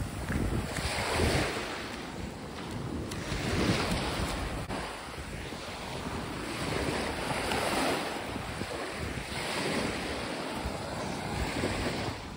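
Small waves washing up a sandy beach, the surf swelling and fading every two to three seconds, with wind rumbling on the microphone.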